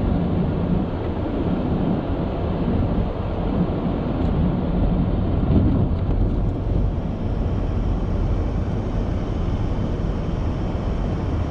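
Vehicle engine running steadily, a continuous low rumble.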